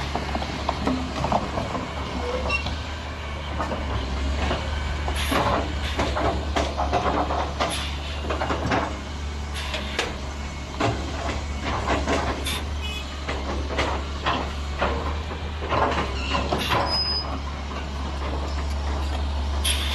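Caterpillar 336D hydraulic excavator's diesel engine running steadily, with frequent sharp knocks and clatter over it.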